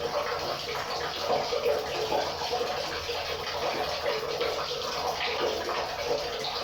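River water flowing and gurgling steadily over rocks.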